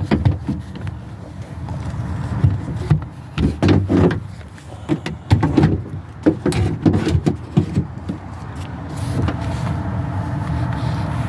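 Hands working inside an opened car door: scattered clicks, knocks and rubbing of metal and plastic parts as the door-handle rod clip is reached for, over a steady low background hum.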